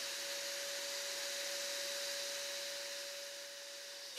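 Electric balloon inflator running steadily, its motor whine held at one pitch under the hiss of air rushing into a latex balloon; it is switched off at the very end and its pitch starts to drop.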